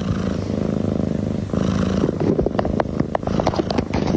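Domestic cat purring, a steady low rumble that comes in waves about a second long, with scattered light clicks over it.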